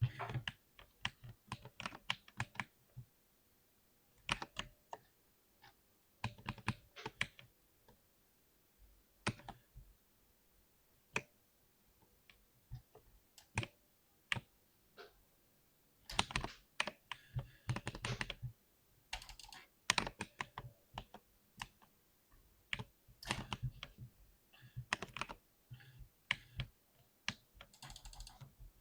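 Mechanical keyboard with Cherry MX Silver linear switches being typed on in irregular bursts of keystrokes with short pauses. There are only scattered single strokes early on, and faster, denser runs of typing in the second half.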